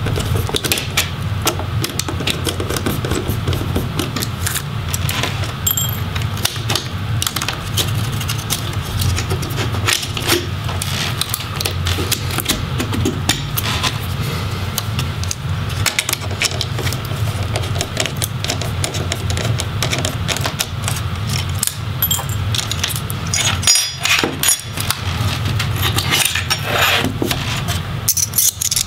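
Small screwdriver working screws in a laptop's plastic and metal chassis: many light clicks, ticks and rattles of tool and small parts handled on the case, over a steady low hum. A small plastic hinge cover is lifted off near the end.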